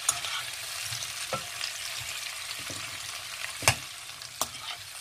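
Vienna sausages and chopped vegetables sizzling in a hot nonstick frying pan as they are stirred with a metal spoon. The spoon knocks against the pan a few times, the loudest about three and a half seconds in.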